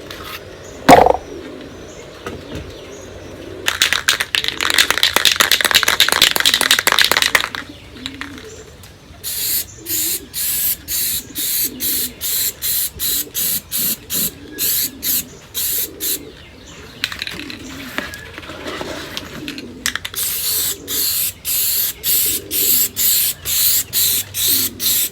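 White Rust-Oleum gloss enamel aerosol can being shaken, its mixing ball rattling rapidly for a few seconds. It is then sprayed in a long series of short hissing bursts, about one to two a second, with a pause in the middle.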